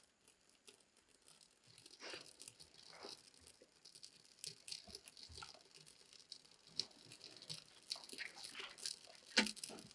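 Faint, irregular crackling and snapping of freshly lit kindling catching in a small steel wood stove, the snaps coming more often towards the end.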